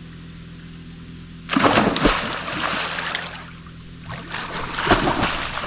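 Two people jumping off a log into a lake, one after the other. Each lands with a loud splash and a low thump, the first about a second and a half in and the second about five seconds in, with water churning between them.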